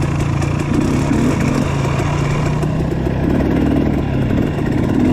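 Trail dirt bike engine running at a steady, even speed while riding single track.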